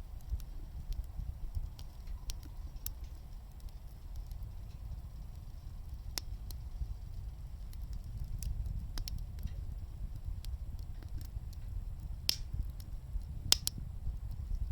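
Wood burning in a wood gas stove: scattered sharp crackles and pops over a low, steady rumble, with two louder pops near the end.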